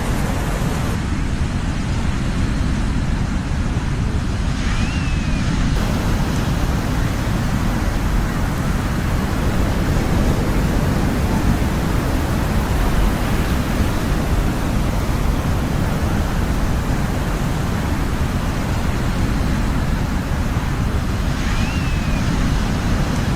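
Recorded ocean surf: a steady, unbroken rush of noise, heaviest in the low rumble. A faint short chirp sounds twice, about five seconds in and near the end.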